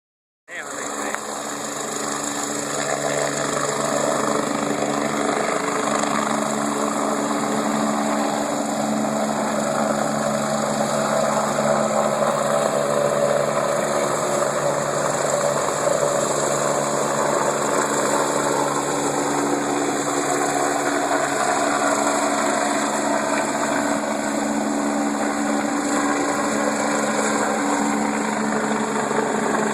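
Bell helicopter's turbine engine running steadily: a high whine over a lower steady hum, getting a little louder over the first few seconds.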